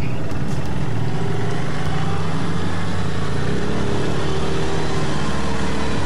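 ATV engine running steadily.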